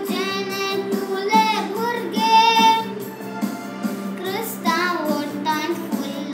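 A young girl singing a Konkani hymn solo, holding long notes with a slight waver.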